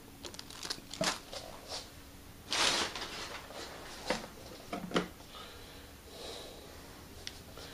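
Unboxing handling noise: scattered light knocks and rustles of packaging as a plastic zip-lock bag is handled and hands reach into a cardboard box, with one longer rustle about two and a half seconds in.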